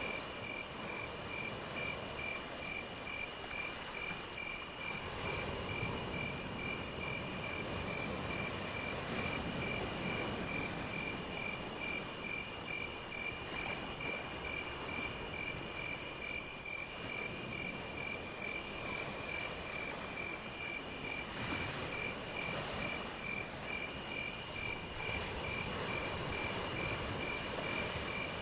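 Insects chirping in chorus: one steady, rapidly pulsing high trill and a higher buzzy call that comes and goes about every two seconds, over a steady low rumbling background noise.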